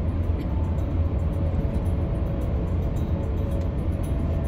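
Steady low road and engine rumble of a car driving through a tunnel, heard from inside the cabin, with music faintly underneath.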